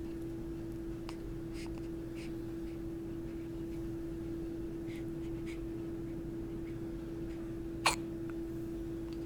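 A single sharp hiccup about eight seconds in, over a steady hum.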